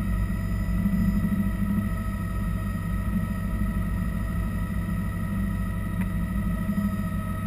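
Bell 206 JetRanger helicopter in cruise flight, heard from inside the cockpit: a steady low rumble from the rotor and Allison 250 turboshaft, with thin steady whining tones from the turbine above it. A faint click about six seconds in.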